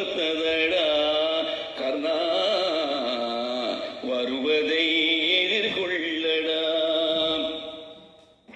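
An old Tamil film song: a singer holds slow, drawn-out notes that bend in pitch, over musical accompaniment, with the thin sound of an old recording. It fades out near the end.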